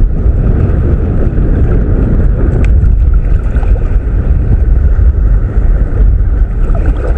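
Wind buffeting the microphone: a loud, steady low rumble, over shallow sea water sloshing around the wader's legs and hands.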